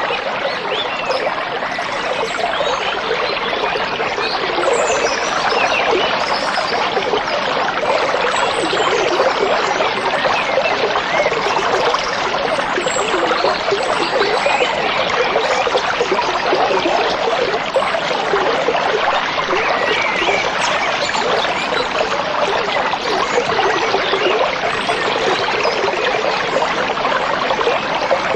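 A stream trickling and babbling steadily, close up.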